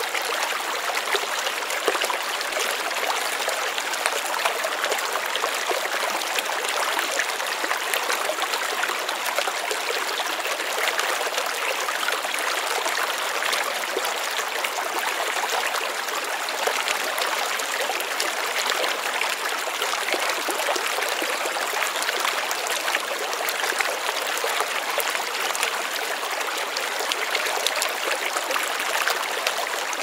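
Stream water flowing steadily over stones, a continuous even rushing and splashing.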